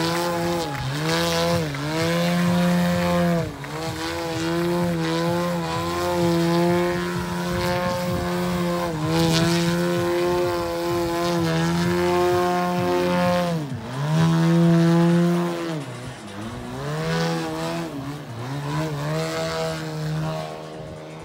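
Desert Aircraft DA 200 twin-cylinder gasoline engine of a large aerobatic model biplane, running hard in flight, its pitch dropping briefly and climbing back again and again as the throttle is chopped and reopened through the manoeuvres.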